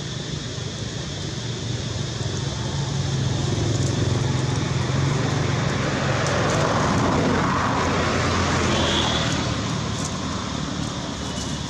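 A motor vehicle passing at a distance: a low engine rumble swells from about three seconds in and fades again after about nine seconds, over steady outdoor background noise.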